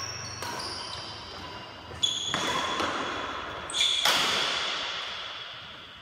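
Badminton racket strikes on the shuttlecock during a rally, three hits about two seconds apart. Each hit rings on in the echo of a large hall.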